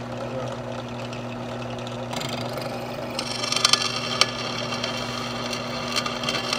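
Benchtop drill press running with a steady motor hum while the bit drills a pin hole through a knife tang of annealed rasp steel. About three seconds in, the bit bites harder and a loud, high-pitched metal-cutting sound with sharp ticks joins the hum.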